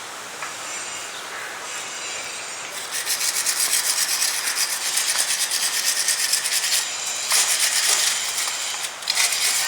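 Rapid, even back-and-forth scrubbing on an engine part, about five or six strokes a second. It starts about three seconds in, with only faint hiss before it.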